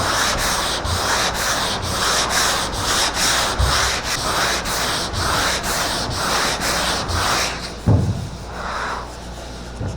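Sandpaper rubbed in steady back-and-forth strokes, about two a second, over the primed body panel of a car; the strokes stop near the end, with a short knock and a few lighter strokes after.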